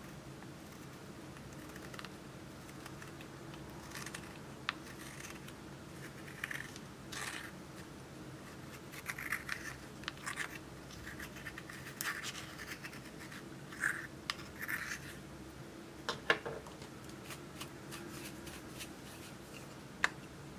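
Small metal spatula scraping pressed makeup powder out of a compact in irregular short scratches, with a few sharp clicks.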